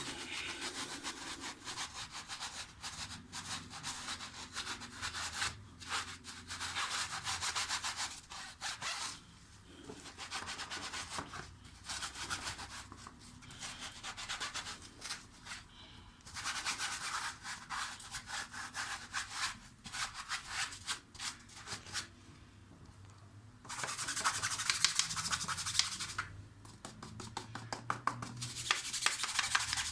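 Hand scrubbing of a dishwasher part to lift rust stains: bouts of rapid back-and-forth rubbing strokes lasting several seconds each, broken by short pauses.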